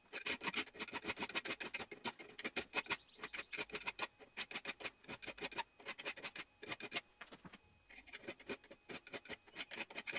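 A flat steel file rasping along the edge of a vise-clamped steel kitchen knife to sharpen it, in quick repeated strokes with a brief pause about eight seconds in.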